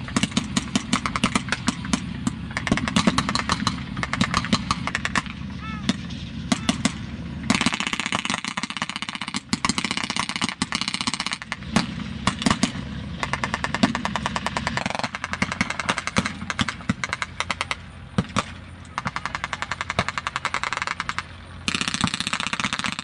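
Blank-firing WWII rifles and machine guns in a mock battle: a long irregular stream of shots with dense rapid bursts. A vehicle engine runs low underneath.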